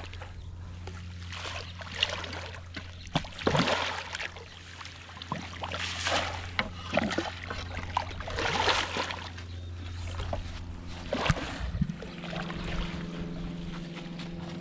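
A large pirarara (redtail catfish) thrashing at the surface and being scooped into a landing net: a run of sharp, irregular splashes and sloshing water over a steady low hum.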